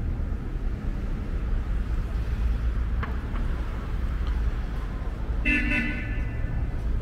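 Steady low rumble of city street traffic, with a short car horn toot lasting about half a second, about five and a half seconds in.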